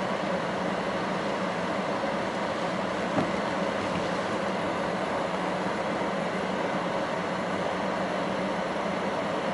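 Waterfall rushing steadily in strong wind, an even unbroken noise, with one brief knock about three seconds in.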